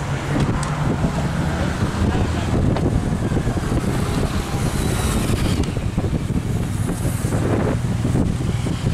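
Wind buffeting the microphone over the low hum of vehicles, with faint voices in the background.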